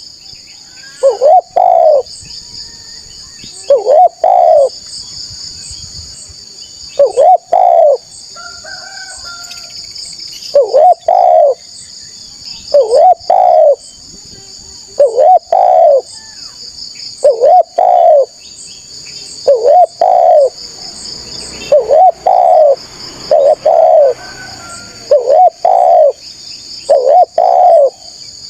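Spotted dove (tekukur) cooing, repeating its short phrase of two or three coos about every two seconds. A steady high buzzing runs under it.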